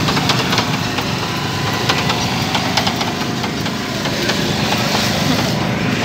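Busy street-market din: a steady engine hum under the noise of a crowd, with many short clicks and clatters.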